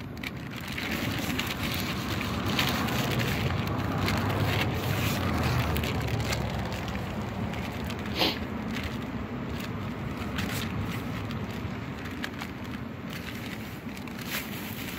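Thin plastic bag crinkling and rustling as a whole mackerel is handled in it, over a low rumble of wind on the microphone; one sharp tick a little past the middle.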